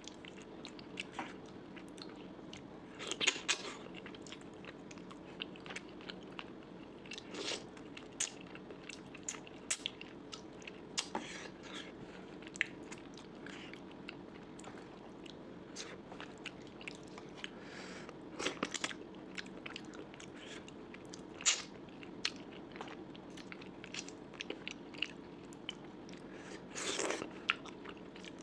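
A person chewing and biting food close to the microphone, with irregular crunches and wet mouth clicks, a few louder crunches standing out, over a faint steady hum.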